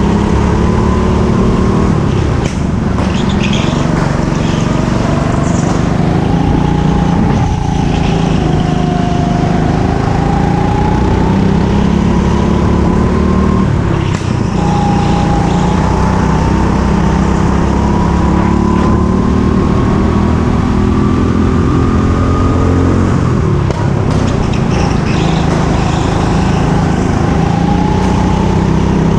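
Go-kart engine running hard on track, its pitch climbing as the kart accelerates and dropping back several times as it slows for corners.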